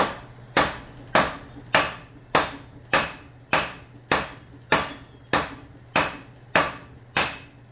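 Dead blow hammer tapping the end of a John Deere hydraulic cylinder's rod: thirteen even strikes, a little under two a second, driving the oiled piston with its new seals into the cylinder barrel.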